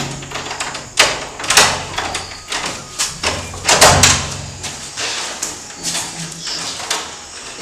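A wooden interior door being handled: a string of loud, sharp knocks and rattles about one to four seconds in, then the door opening with its lever handle.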